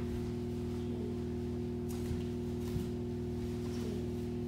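A steady low electrical hum made of several fixed tones, with a few faint scuffs of bare feet on tatami and rustling judogi during judo throw-entry drills, about two seconds in and again shortly after.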